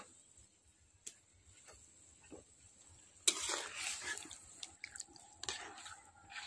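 Metal ladle stirring a thin curry in an aluminium pot. About three seconds in it sets in with a sudden scrape and slosh of liquid, and more scraping stirring follows near the end. Before that there are only faint ticks.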